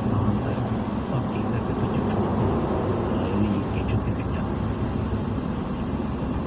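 Steady rumble of a moving vehicle, road and engine noise.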